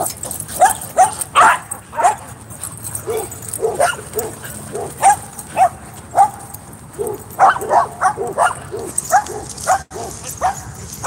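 Dog barking again and again in short, quick barks and yips, in irregular runs, as dogs play and chase each other.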